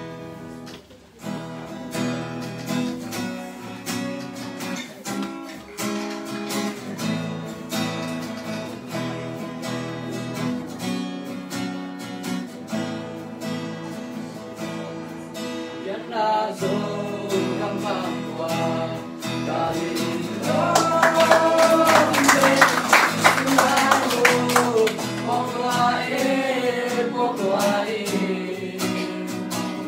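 Acoustic guitar strummed in a steady rhythm, alone at first; about halfway through, a group of teenage voices comes in singing together with it, louder for a few seconds a little past the middle.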